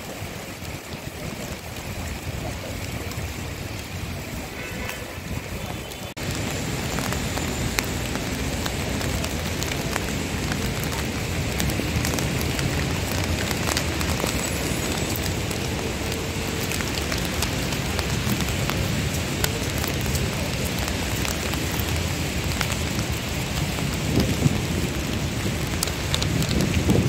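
Steady rain falling on wet paving, an even hiss scattered with fine drop ticks; it suddenly gets louder about six seconds in.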